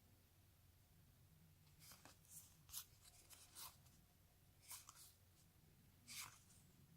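Faint, brief swishes of baseball trading cards being handled and slid past one another, about six soft brushes spread through otherwise near silence.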